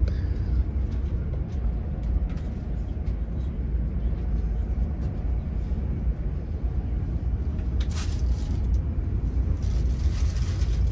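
Steady low rumble of a moving passenger train heard from inside the carriage, with a couple of brief hissing surges near the end.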